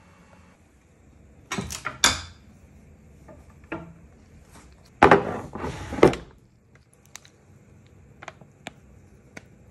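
Clunks and scraping of the metal chase being worked in the bed of a Chandler & Price platen press, in two bursts about a second and a half in and again about five seconds in, followed by a few light clicks.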